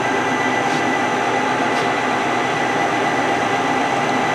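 Clausing CKE6140Z CNC lathe with its spindle running at a steady speed: an even mechanical hum with a few constant whining tones above it.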